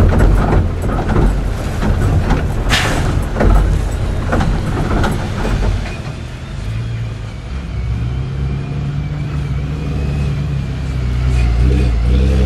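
Nurol Makina Yörük 4x4 armoured vehicle coming down a steep slope. For the first half there are many clattering knocks and rattles over the rough ground, with one loud bang about three seconds in. After that the engine runs at a steady low drone.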